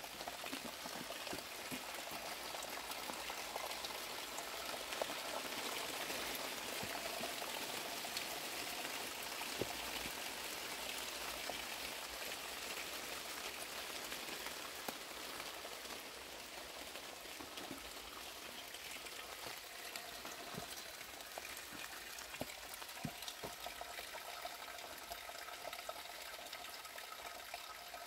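Spring water running steadily from a thin pipe spout into a stone basin: a continuous splashing hiss, a little louder in the first third, with a few faint clicks.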